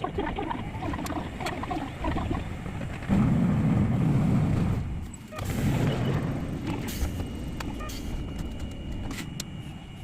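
Hankai Tramway streetcar running noise: a steady rumble of wheels and motor, louder for about two seconds from about three seconds in.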